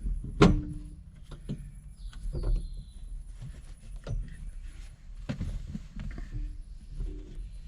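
Metal parts knocking and clinking as hardware is worked onto a VW Beetle's shift rod coupler by hand, with one sharp metallic clank about half a second in that rings briefly, then lighter knocks at irregular intervals.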